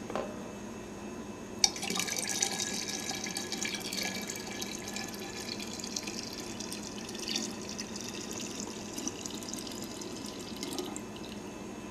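Water poured in a thin stream from a cup into the narrow glass neck of a carboy of wine, topping it off to push out the air. The pouring starts about a second and a half in and stops shortly before the end.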